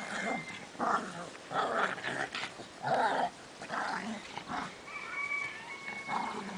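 Dog barking in a string of sharp barks, about one or two a second, with a thin high note sounding briefly near the end.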